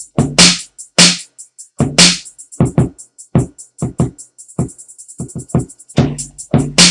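808-style drum machine beat playing back from Native Instruments Maschine: steady closed hi-hat ticks that speed into a fast roll around the middle, with loud snare and drum hits on the beat.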